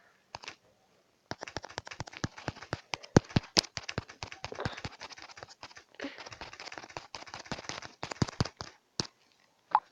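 Rapid, irregular tapping from typing on a phone's touchscreen, several taps a second. It starts about a second in and stops shortly before the end.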